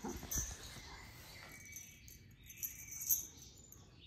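A small bell jingling in short shakes, loudest about three seconds in, with dull handling bumps near the start.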